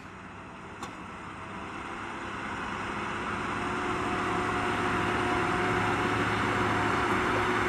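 Diesel engine of a heavy machine running and growing steadily louder, with a steady hum coming in about halfway through as it works harder or comes closer. A single click about a second in.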